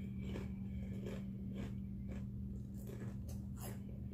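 Close-up crunching and chewing of tortilla chips (Doritos), a crunch about twice a second, over a steady low electrical hum.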